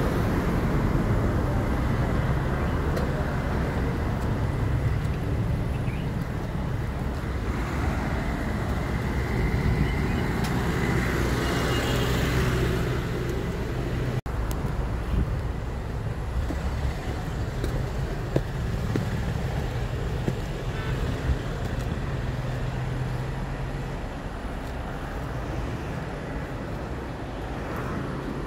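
Road traffic: a steady low engine drone of vehicles, which cuts out for an instant about halfway through.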